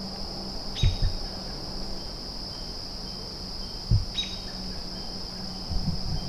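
Steady high-pitched drone of insects trilling in late-summer woods, with a few soft low thumps about a second in, near four seconds and near the end.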